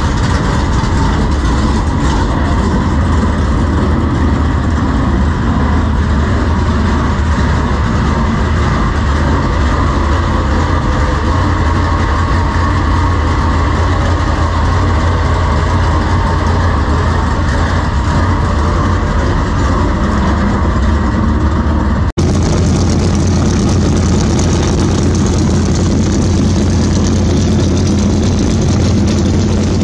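Several dirt super late model race cars' V8 engines idling together, a loud, steady low-pitched din. About two-thirds of the way through the sound cuts abruptly to another stretch of the same engine noise.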